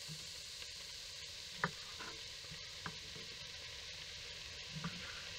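Chopped vegetables (carrots, celery, onions, garlic) sautéing in a pan, a steady faint sizzle. A few short sharp clicks stand out over it, the loudest about a third of the way in and a small pair near the end.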